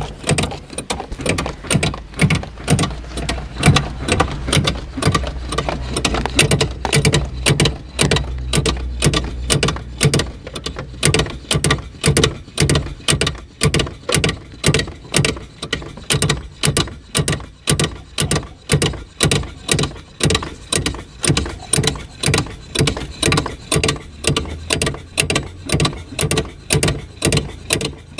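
Toyota HiAce clutch pedal pumped over and over, a regular mechanical stroke about twice a second, while air is bled from the newly fitted hydraulic clutch master cylinder.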